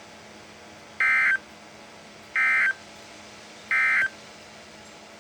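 Three short, identical bursts of EAS SAME digital data tones (the warbling two-tone modem signal of the Emergency Alert System), about a second and a half apart, over a steady hiss. Their shortness marks them as the end-of-message code that closes an alert broadcast.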